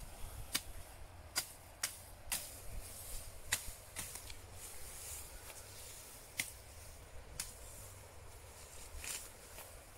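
Hand sickle slicing through clumps of grass stalks: a run of short, crisp cuts at irregular intervals, about nine clear ones with a few fainter ones between.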